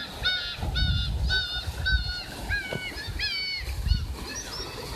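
Gulls calling, a flock's short nasal calls coming about two a second and overlapping, thinning out near the end, over a low rumble.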